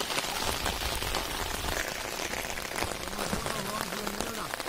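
Steady rain falling onto floodwater: a dense patter of drops hitting the water surface.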